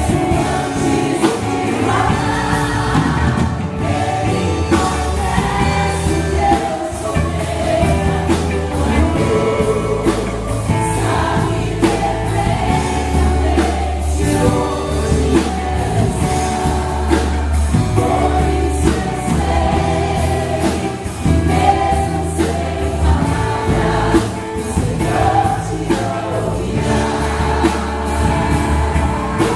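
Gospel worship song: a choir singing over a band, with sustained bass notes and drums keeping a steady beat.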